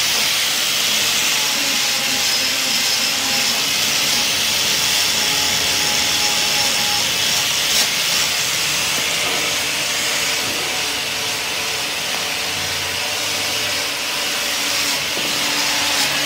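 Angle grinder running steadily, its abrasive disc scrubbing the cast-iron top face of a Massey Ferguson 35 four-cylinder engine block to clean it for the head gasket.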